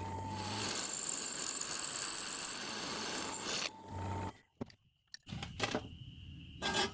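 Electric drill running and a quarter-inch bit cutting through a steel knife blank for about three seconds, then the drill whines briefly free and stops. A few clicks and knocks of handling follow near the end.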